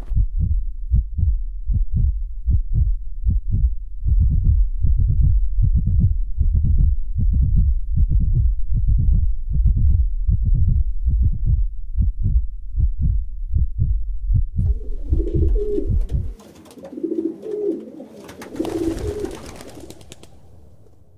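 Added soundtrack: a deep, fast thumping pulse like a heartbeat, about three beats a second, that stops about sixteen seconds in. It gives way to pigeon coos mixed with bursts of fluttering noise, which fade out at the end.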